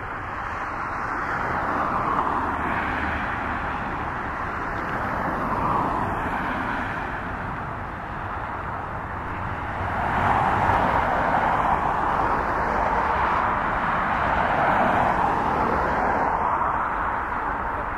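Boeing 777-300ER's twin GE90 turbofans running at taxi power as the airliner rolls slowly along the runway. A steady jet whine over a low rumble, with a slow sweeping whoosh, growing louder about ten seconds in as the aircraft turns.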